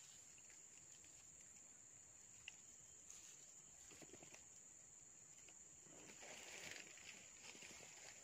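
Near silence: a faint, steady, high-pitched insect drone, with a few soft rustles in the leaf litter.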